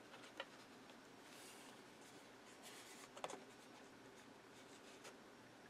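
Near silence with faint rustling of card stock being handled, and a few soft ticks.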